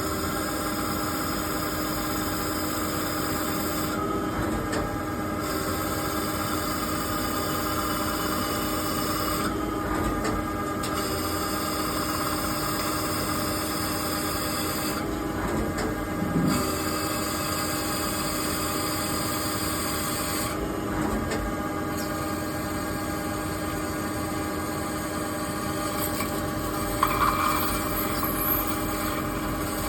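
CNC lathe running and turning a cast nylon (Kestamid) workpiece: a steady machine hum with a held whine over cutting hiss. The hiss breaks off for about a second every five to six seconds in a repeating cycle.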